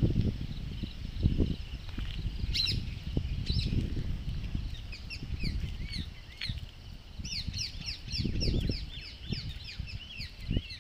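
Songbirds chirping, with rapid runs of short repeated notes that start a couple of seconds in and grow to several a second near the end. Underneath is an uneven low rumble of wind and handling noise on the microphone of a camera carried on foot.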